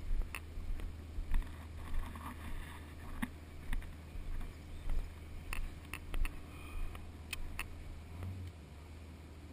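Irregular light knocks and clicks, about a dozen and unevenly spaced, over a steady low rumble.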